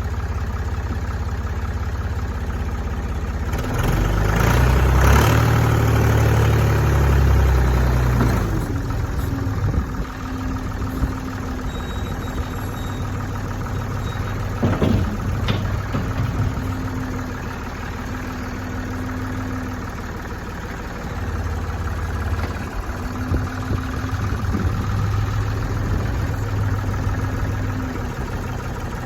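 Ford 555B backhoe's diesel engine running, raised in speed for about four seconds early on, then settling back to idle, with a few sharp knocks partway through.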